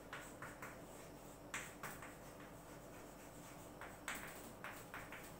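Chalk writing on a chalkboard: a string of short strokes, with a gap of about two seconds in the middle.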